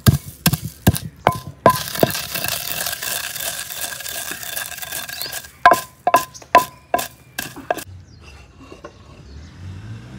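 Wooden pestle pounding whole coriander seeds in a mortar: two runs of about six sharp strikes each, roughly two and a half a second, with a short ring after some strikes and a steady hiss between the runs. The pounding stops about eight seconds in.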